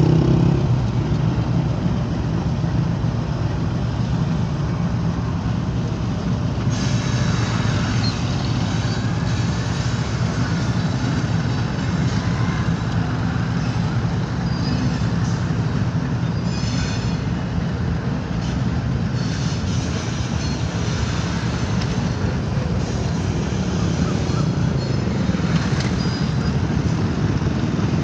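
Diesel freight train passing: the GEU-40 locomotive's engine drone fades about a second in, then a steady rumble and rattle of loaded freight wagons rolling over the rails, with brief high wheel squeals now and then.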